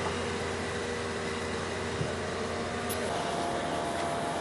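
A steady low mechanical hum and drone, with faint held tones that shift pitch about three seconds in and a small click near the middle.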